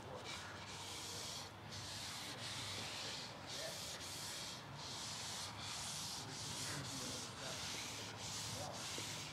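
Blue shop towel rubbed back and forth over a ridged end-grain white oak cutting board, wiping on cutting board oil. It makes a repeated hissing swish, roughly one stroke a second with short breaks between strokes.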